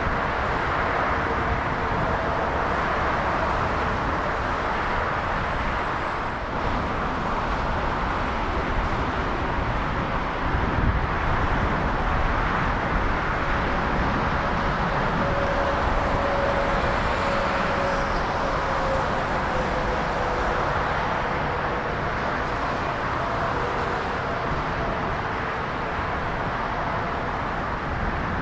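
Jet aircraft engines running, a steady rushing noise with a faint whine that dips slightly in pitch about two-thirds of the way through.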